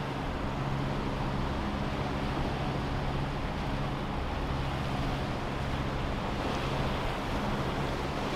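A sailboat's engine running steadily under power, a constant low hum, with wind and choppy river water rushing past.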